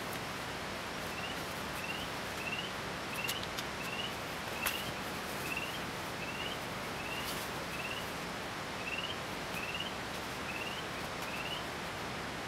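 Wet forest ambience: a steady hiss with a small animal's short rising chirp repeated about every half second from about a second in until near the end, and a few sharp clicks, the loudest a little under halfway through.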